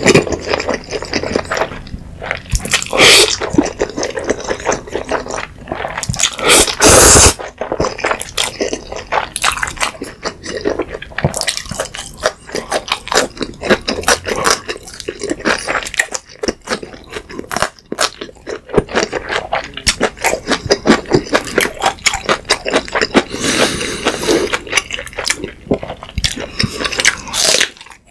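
Close-miked eating sounds: noodles in black-bean sauce slurped loudly from chopsticks, with two long slurps in the first seven seconds, then steady wet chewing full of small smacking clicks.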